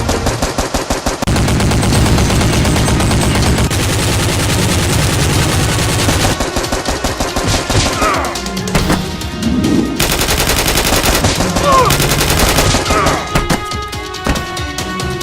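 Automatic gunfire sound effect: rapid shots in long, continuous bursts.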